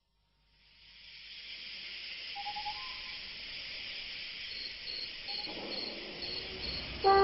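A steady hiss fading in, with faint insect-like chirps repeating evenly at two or three a second. Music with brass cuts in at the very end.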